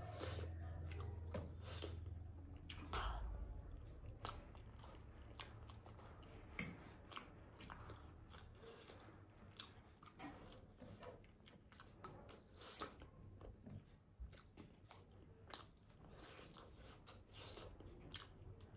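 Close-up chewing and biting sounds of a person eating steamed momo dumplings dipped in jhol sauce, with many short sharp clicks and smacks scattered throughout.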